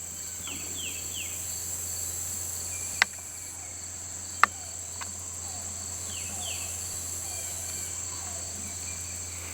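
A steady, high-pitched chorus of insects like crickets, with a few short falling bird chirps. Two sharp clicks come about three and four and a half seconds in.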